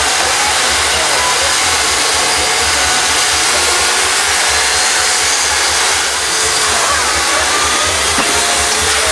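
Chainsaws cutting into a large block of ice, several running at once with a steady, unbroken buzz.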